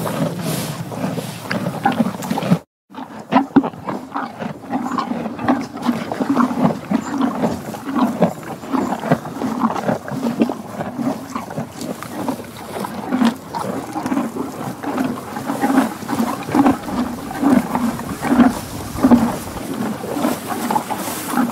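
Horse sounds: a run of repeated short, low-pitched pulses, broken by a sudden cut to silence about three seconds in.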